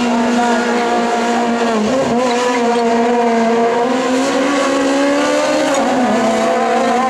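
Peugeot 206 rally car's engine held at high revs in a steady, strained note, dipping briefly about two seconds in and dropping again near the end as the car takes the bends.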